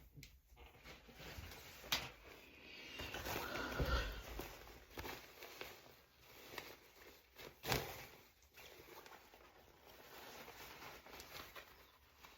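Faint handling and rustling noises, with two sharp clicks, one about two seconds in and a louder one near eight seconds.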